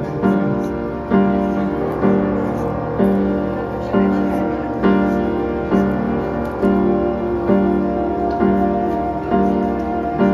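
Background music led by piano, with chords struck at an even pace of about one a second.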